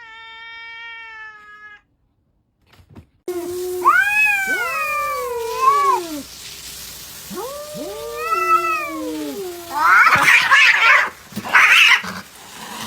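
Cats meowing and caterwauling. First comes a short, steady meow. Then come two long yowls that waver up and down in pitch, followed by two harsh, screeching outbursts near the end.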